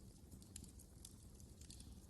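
Wood fire crackling faintly: scattered small snaps and pops over a low, steady rumble of the flames.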